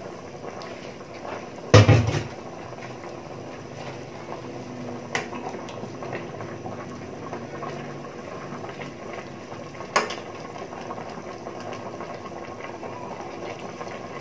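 Stew boiling in a stainless-steel pot, a steady bubbling. A metal spoon or ladle knocks loudly against the pot about two seconds in, with lighter knocks around five and ten seconds.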